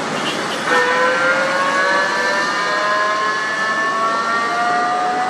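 Heavy lowbed truck hauling an excavator, its engine working under load over steady road noise. About a second in, a whine comes in and rises slowly in pitch.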